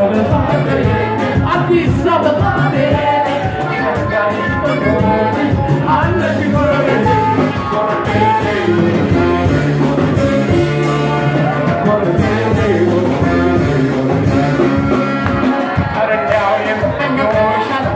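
Live band playing Ethiopian popular music, with saxophones, electric bass and congas under a male lead singer, at a steady beat.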